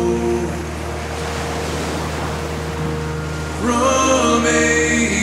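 Soundtrack music of a sung song, in a quieter held passage with a soft wash of noise under it. A fuller chord comes back in about three and a half seconds in, with a sung line sliding up into it.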